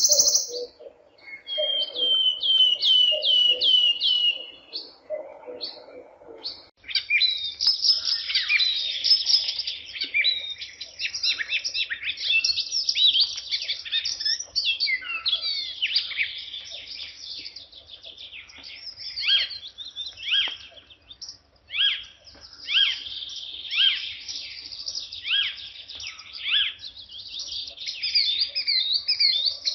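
Small birds chirping and twittering: first a short run of quick, evenly repeated falling chirps, then from about seven seconds in a dense chorus of many birds calling over one another.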